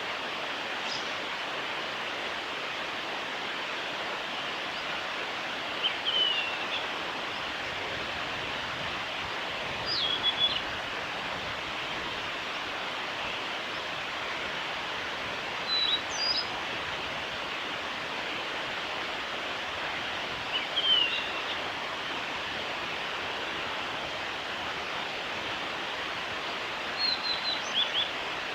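Male blue-and-white flycatcher singing: five short, high song phrases about five seconds apart, over a steady background hiss.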